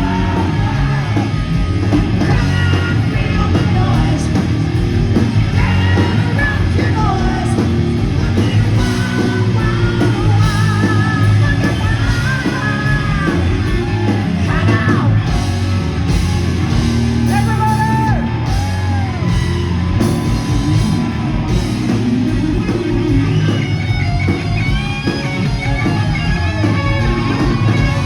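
Rock band playing loud 1980s-style hard rock: a singer with wavering, bending vocal lines over electric guitar and drums.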